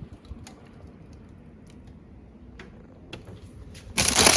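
Light scattered clicks and taps of kitchen handling, then about four seconds in a loud crinkling rustle starts abruptly, like plastic packaging being handled.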